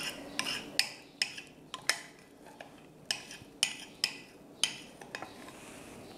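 A metal spoon clinking and scraping against a glass dish while scooping thick batter: about ten short, sharp taps at irregular intervals.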